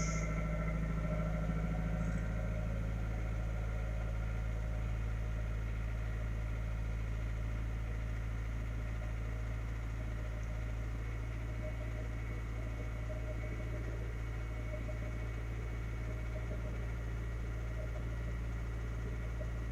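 Toyota Premio's 1ZZ inline-four engine idling steadily, the engine its owner is recording for a knock.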